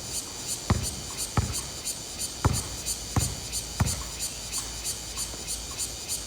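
A basketball bouncing on an outdoor court: about five thudding bounces at uneven intervals in the first four seconds, then a lighter one near the end.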